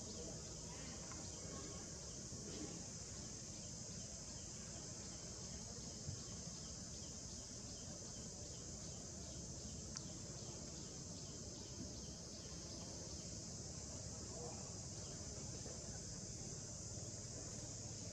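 A chorus of insects singing in one steady, high-pitched, unbroken drone.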